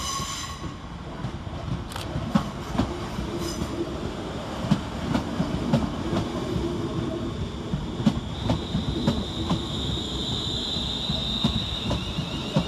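Class 350 Desiro electric multiple unit running into the platform and slowing, with a low rumble and wheels clicking over rail joints. A steady high-pitched squeal sets in a little past halfway as it brakes, and a brief high tone sounds right at the start.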